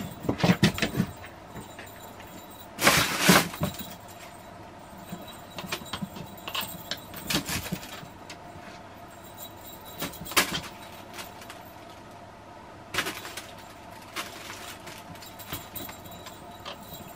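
A cat playing with a small toy on a laminate floor: scattered knocks and clatters, with one louder noisy burst lasting under a second about three seconds in.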